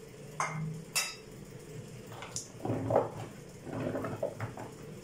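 Cut green olives, lemon pieces and green chili peppers tossed together by hand in a plastic mixing bowl: a couple of sharp knocks in the first second, then a few seconds of clattering and rustling.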